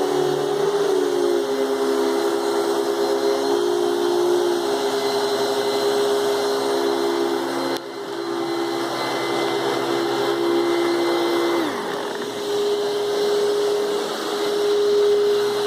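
Hoover Spectrum canister vacuum cleaner running steadily with a high, even whine. About three-quarters of the way through, one of its tones drops away with a falling pitch, while the main whine carries on.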